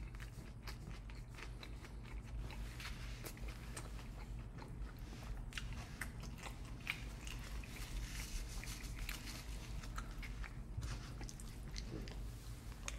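Close-miked chewing of a mouthful of garlic guajillo steak bowl: wet mouth clicks and small crunches scattered throughout, over a steady low hum.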